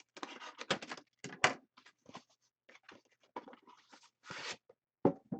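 Trading-card packaging being handled and opened by hand: irregular crinkling, rustling and small knocks, with a sharper crackle about one and a half seconds in and again near the end.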